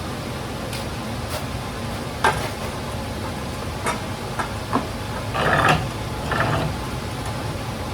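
Steady crackle, likely from welding the steel pieces of the toolbox mounting plate, with a few sharp metallic clicks and two short louder bursts around the middle.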